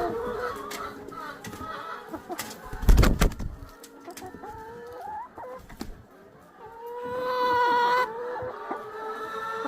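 Domestic chickens clucking, with a loud brief thump about three seconds in. A rooster crows once, a single held call, about seven seconds in.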